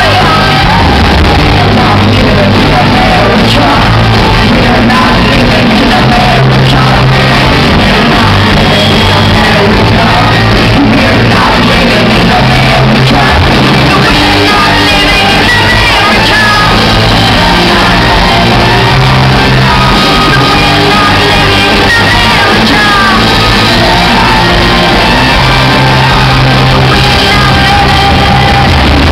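Live rock band playing loud: a woman singing into a microphone over electric guitar, bass guitar and drums.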